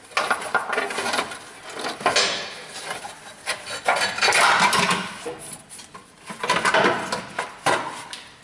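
Thin sheet-metal exhaust manifold heat shield clanking and scraping against the engine and frame as it is worked loose by hand, in several bursts of metallic rattling.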